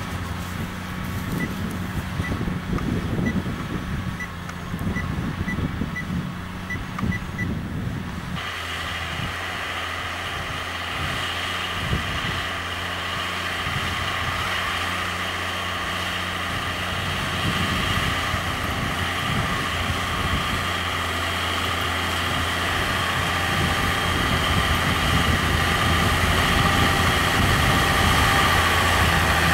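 New Holland TM120 tractor's diesel engine running steadily while ploughing, with wind buffeting the microphone for the first several seconds. About eight seconds in a higher engine whine joins, and the engine grows gradually louder as the tractor comes closer.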